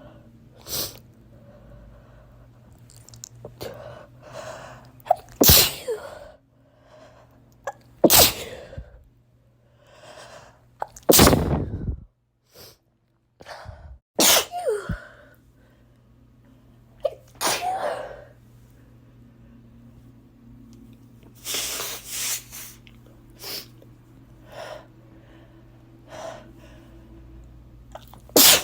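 A person's messy sneezing fit: a run of about seven or eight loud sneezes, a few seconds apart, with quieter breathing between them.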